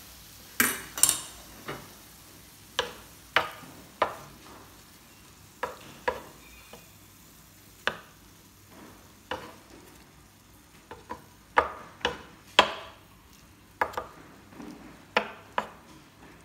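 Wooden spatula knocking and scraping against a ridged nonstick grill plate as shrimp and mussels are stirred and turned: irregular sharp clacks, a few close together, spread a second or so apart.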